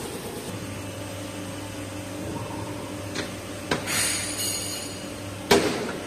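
Steel baler press being handled: a steady machine hum, a few metallic clicks, a brief rushing scrape, then one loud ringing metal clang near the end.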